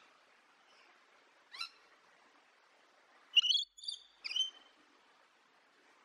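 Rainbow lorikeet calling: one short call about a second and a half in, then three quick calls in a row around the middle.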